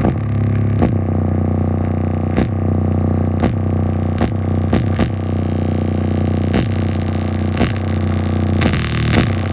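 Two car speakers overdriven by a 300 W amplifier, playing a steady, heavily distorted low bass tone. Irregular sharp pops and crackles cut in about once a second as the speakers are pushed past their limits.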